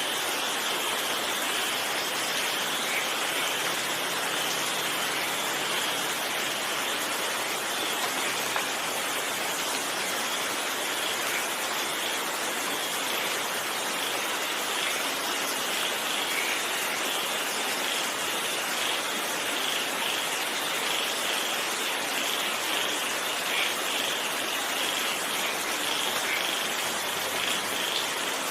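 Steady rain falling, an even hiss that holds at one level throughout, with faint scattered drop patter on top.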